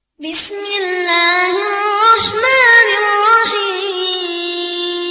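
A high solo voice singing long, drawn-out melodic notes, with the pitch rising and bending in the middle and settling into one long held note.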